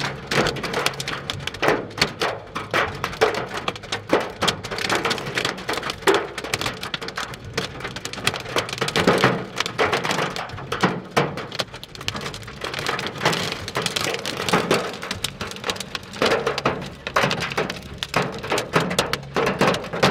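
Hail falling hard, a dense, irregular clatter of hailstones striking hard surfaces, mixed with the hiss of rain.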